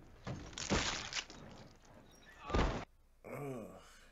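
TV episode soundtrack: two heavy noisy crashes, about two seconds apart, the second the loudest, followed by a short groaning voice.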